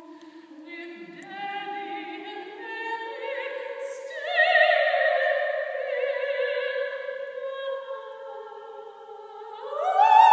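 A woman singing solo in a classical, operatic style: long held notes with vibrato that climb step by step. After a dip, her voice slides up to a loud, high sustained note near the end.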